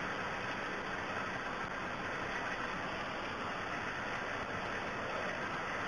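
Steady, even background hiss with no distinct events: the room tone of a lecture recording.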